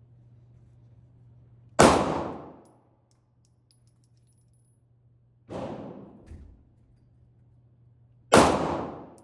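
Three pistol shots a few seconds apart, each a sharp crack with a tail that fades over about a second. The second shot is quieter than the other two.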